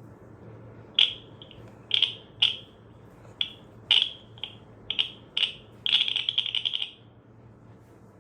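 Nokia 3220 mobile phone playing one of its ringtones through its small loudspeaker: a rhythmic pattern of short, high-pitched beeps, ending in a quick run of rapid beeps about six seconds in before it stops.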